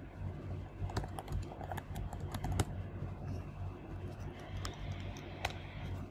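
Typing on a computer keyboard: a run of irregular keystroke clicks, over a steady low hum.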